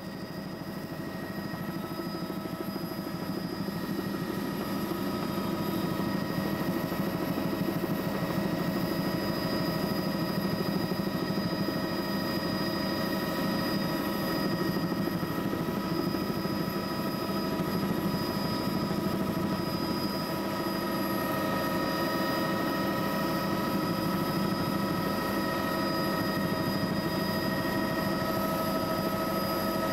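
Helicopter running steadily: a constant low drone with a whine of several steady high tones over it, fading in at the start and then holding level.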